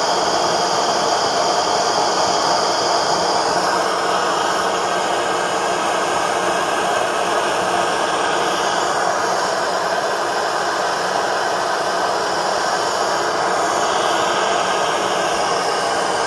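Gas burner of a Saito model steam engine firing into the brass boiler's flue, a steady rushing hiss of flame as the boiler heats up.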